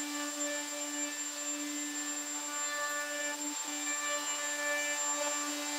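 Triton plunge router running at speed, a steady high motor whine.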